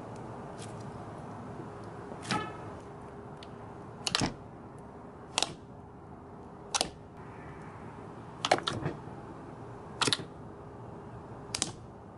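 Jelly slime made from instant snow powder being squeezed and pressed by hand, giving about seven short wet pops and squelches at irregular intervals. These sit over a steady low hiss with a faint hum.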